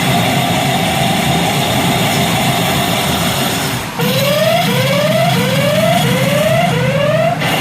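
Garo Sho pachislot machine sound effects over loud, steady noise. About halfway in, a rising siren-like tone starts and repeats five times in quick succession, the effect that signals a confirmed bonus role.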